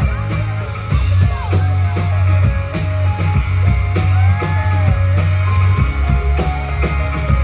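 Rock band playing live: electric guitar with notes that bend and glide up and down, over drums and a steady low bass line.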